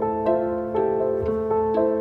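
Background instrumental music: a gentle run of notes at an even pace, about two a second, over a steady held low note.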